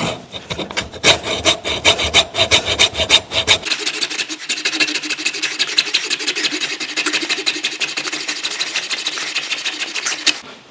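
Hacksaw sawing through the flange of a polyurethane leaf-spring bushing in rapid back-and-forth strokes, to narrow the bushing to fit its bracket. The strokes get faster and more even about three and a half seconds in.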